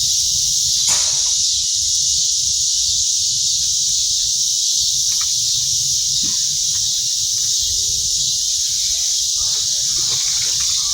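Steady, high-pitched drone of an insect chorus, unbroken, over a low rumble.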